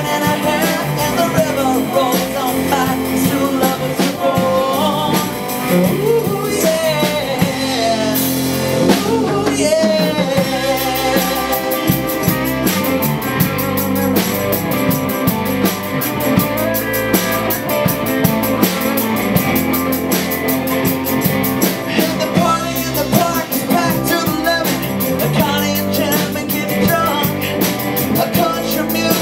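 Live band playing with a lead singer, electric and acoustic guitars and a drum kit.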